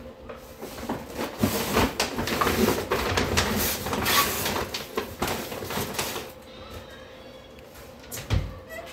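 Rustling, with small knocks and clicks, as a gift bag is pushed onto a shelf and things are shifted inside a wooden wardrobe; it quietens after about six seconds, and there is a single low thump near the end.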